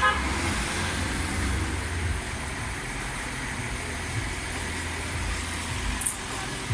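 A car engine running steadily with road noise, and a brief high tone right at the start.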